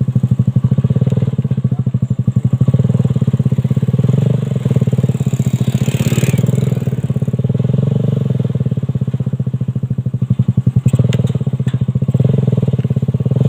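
Suzuki Satria FU 150cc single-cylinder motorcycle engine running a homemade buggy, a steady rapid putter at fairly even revs. It eases off a little in the middle and picks up again near the end, with a brief hiss about six seconds in.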